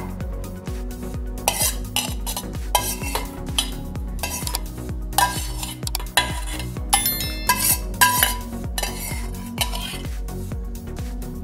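Metal spoon scraping and clinking against a stainless steel bowl of stir-fried cabbage, in irregular strokes.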